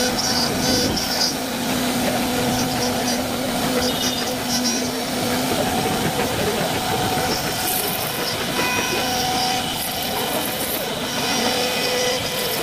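CNC wood-carving router running steadily as it cuts, a constant hiss of cutting noise under a held machine hum.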